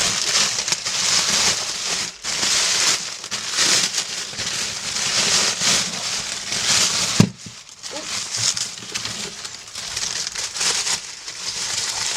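Plastic packaging crinkling and rustling in bursts as it is handled and unwrapped, with a single sharp knock about seven seconds in.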